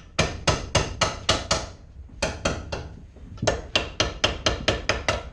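Dead blow hammer striking a bent metal bracket clamped in a bench vise, straightening it: fast, even blows about five a second, in three runs with brief pauses about two and three seconds in.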